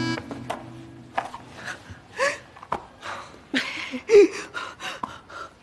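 A woman's short wordless vocal noises: a breathy gasp and two brief pitched cries, the louder one about four seconds in. Scattered light knocks and rustling run between them.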